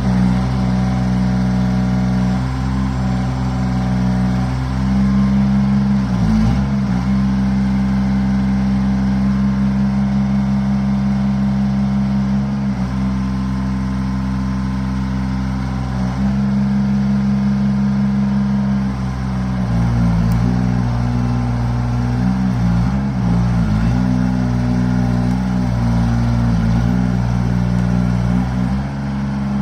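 Engine of an American Excavator Model No. 25 running with a steady low note that wavers and dips briefly several times.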